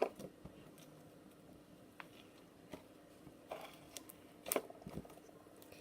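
Quiet handling of slime and clay, with a few light, separate clicks and taps; the loudest comes about four and a half seconds in.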